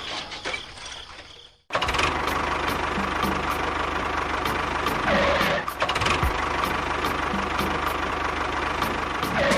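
A small engine running steadily with a fast knocking pulse. It starts abruptly about two seconds in, after a fading rumble.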